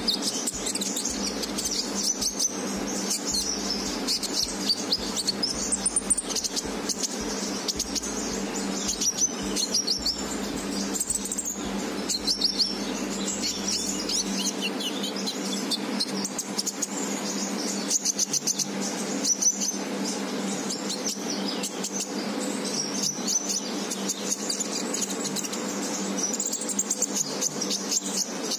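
Caged olive-backed sunbird (konin) twittering: quick, high-pitched chirps and short trills keep coming, over a steady low hum.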